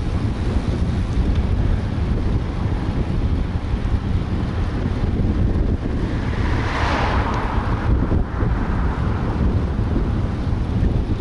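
Wind buffeting the microphone while riding a road bike at speed, with a low rumble throughout. About two-thirds of the way through, an oncoming car passes in the other lane and its tyre hiss swells and fades over a couple of seconds.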